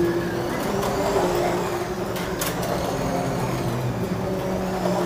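Several Carrera Digital 1/24 scale slot cars lapping the track, their electric motors whining at pitches that shift up and down as the cars speed up and slow down. A sharp click sounds about halfway through.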